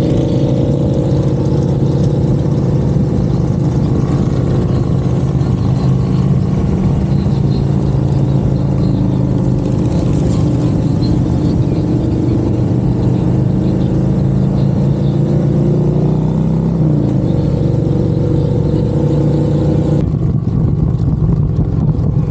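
Harley-Davidson V-twin motorcycle engine running steadily under way, with road and wind noise; the engine note drops about three-quarters of the way through as the bike eases off.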